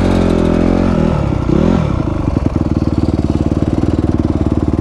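Dirt bike engine held at raised revs, dropping back about a second in. A short throttle blip follows at about one and a half seconds, then it settles into a steady idle.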